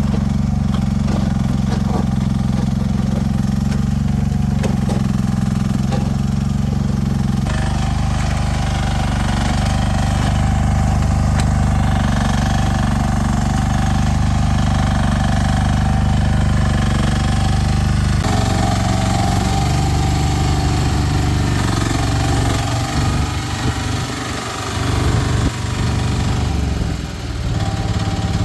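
Small 10-horsepower engine of a 1-ton mini excavator running steadily while it digs. The engine note changes abruptly twice, about a quarter of the way in and again past halfway.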